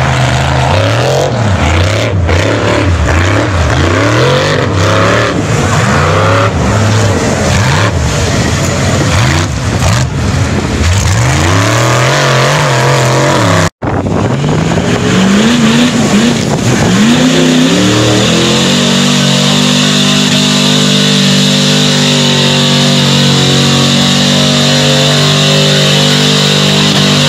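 Mud-bog trucks' engines revving hard in deep mud, the pitch rising and falling over and over. About halfway through, after a cut, an engine revs up and then holds a steady high rpm as the tires churn.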